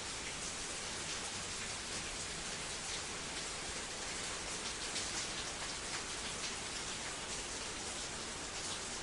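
Steady spattering of falling water, many fine drops hitting a hard surface in a continuous patter.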